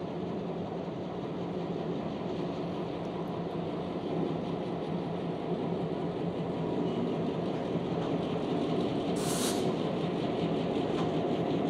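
Two EMD GP38-2 diesel locomotives running as they pull a freight train slowly toward the listener, their low engine rumble growing steadily louder. A short hiss about nine seconds in.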